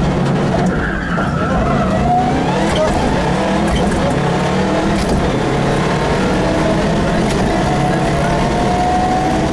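Rally car's engine heard from inside the cabin, running hard under acceleration, its pitch climbing steadily over the last few seconds.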